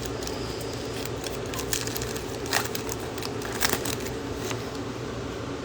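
Crinkling and rustling of a foil trading-card pack wrapper being torn open and the cards handled, in a few short scattered bursts.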